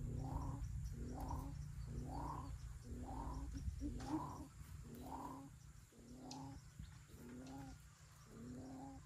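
Greater coucal giving its deep, hollow 'boop' call in a slow, even series of about a dozen notes, roughly one every three-quarters of a second, fading somewhat after the midpoint.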